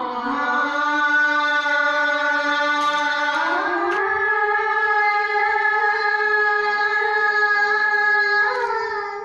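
Women's voices chanting a Karen hta (traditional sung verse) in long held notes. The pitch steps up about three and a half seconds in and holds, with a short bend near the end.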